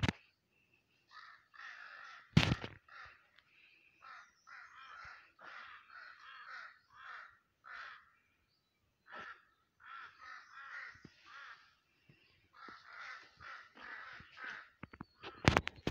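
Crows cawing over and over in rapid runs of short, harsh calls, with one sharp knock a little over two seconds in.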